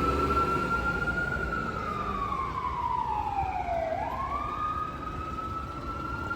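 Fire engine siren wailing. The tone holds high, slides slowly down for about two and a half seconds, then sweeps quickly back up about four seconds in and holds high again. A low vehicle rumble runs underneath.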